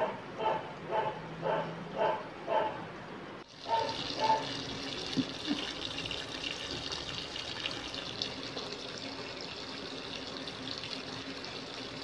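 A dog barks about twice a second for the first three seconds or so. Then water pours steadily from the inlet of a Sharp fully automatic top-load washing machine into the drum of laundry as the tub fills, with two more barks just after the water sound begins.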